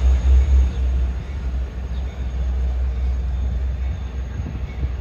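EMD DE30AC diesel-electric locomotives rumbling as the train pulls away. The deep rumble is loudest at first, eases about a second in, and then holds steady as the train recedes.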